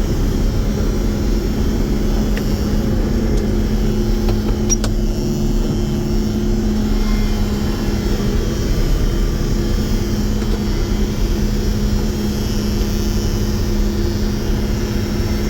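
Combine harvester running steadily while harvesting corn: a constant engine drone with a steady hum and no change in speed.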